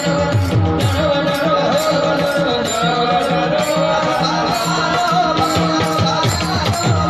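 A man singing a devotional melody with a wavering, ornamented line, over percussion that keeps a steady beat of several strokes a second.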